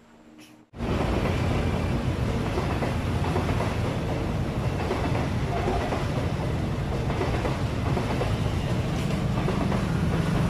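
Passenger train rolling through a level crossing: a loud, steady rumble of the train passing, starting abruptly about a second in.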